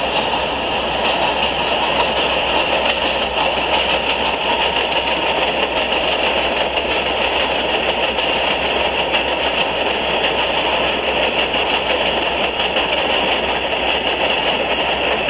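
New York City subway 4 train running along an elevated steel structure: a loud, steady rumble and rattle of the wheels on the track.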